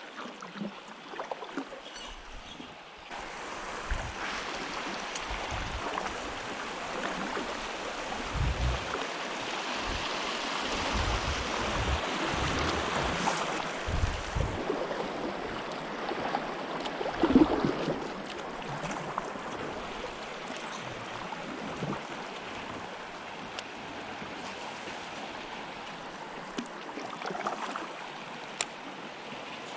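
River current rushing and splashing around a kayak, swelling for a while mid-way, with scattered low thumps.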